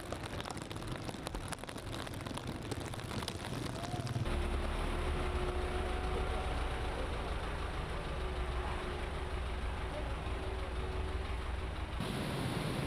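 Flooded street: splashing and clicks from people wading through water, with faint distant voices. From about four seconds in, a low steady engine hum from a motorcycle being run while it is pushed through the flood water.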